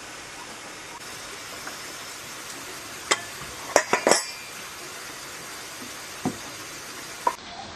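Sharp metal clinks and taps of hand tools and loose engine parts against the cast cylinder head of an air-cooled diesel engine being taken apart. There is one clink about three seconds in, a quick run of clinks around four seconds, and two more near the end, over a steady background hiss.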